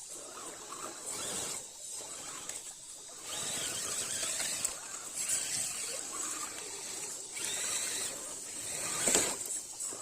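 Radio-controlled scale crawler driving over rough ground, its electric motor and gearbox whining in spurts that stop and start several times, with a louder push near the end.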